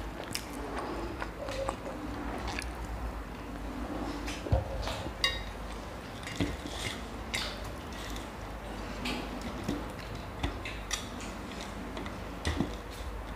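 Metal forks clinking and scraping on steel plates in irregular taps while two people eat pasta and noodles, with mouth sounds of chewing.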